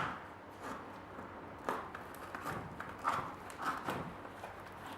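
A cardboard shipping box and its packing being handled and opened by hand: scattered soft taps and rustles at irregular intervals.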